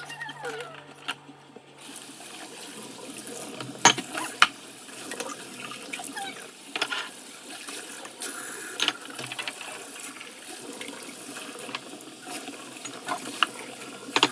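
Dishes being washed by hand at a sink: tap water running steadily, with scattered clinks and knocks of dishes against each other and the sink.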